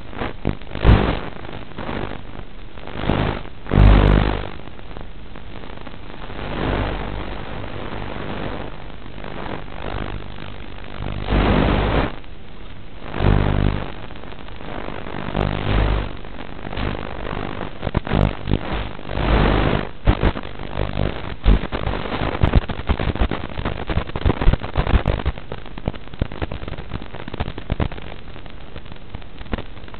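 Irregular bursts of buzzing static and crackle over a steady hiss, from an analog FPV video link's audio as the signal from a grounded, disarmed quadcopter weakens and breaks up. The motors are silent.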